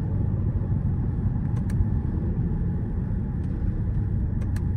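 Steady low rumble of engine and road noise inside the cabin of a Mercedes-AMG GLE 53 being driven gently in its normal, non-sport mode, with no exhaust pops or bangs. A few faint ticks sound now and then.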